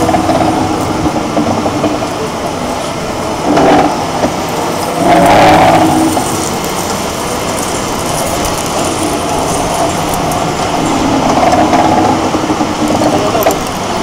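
Split-frame pipe cutoff and beveling machine running, its rotating ring carrying the tool post around a large-diameter steel pipe, with a steady mechanical running noise. It swells louder briefly about four seconds in and again at five to six seconds in.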